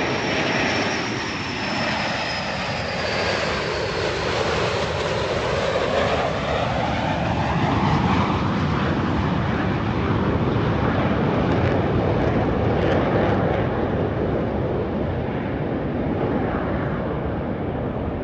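An airplane flying past with its engine noise steady and loud. A high whine falls in pitch over the first few seconds, and the sound sweeps in colour as the aircraft passes.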